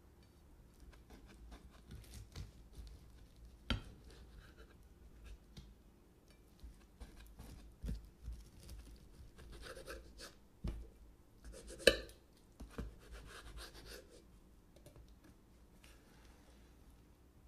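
Serrated knife sawing through the crisp puff-pastry crust and filling of a baked quiche: scratchy rasping with scattered sharp clicks as the blade meets the plate, the loudest a little before twelve seconds in.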